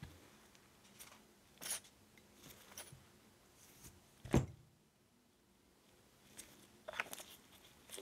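Small handling noises: scattered faint clicks and taps, a short rustle about a second and a half in, and one louder knock just past four seconds in.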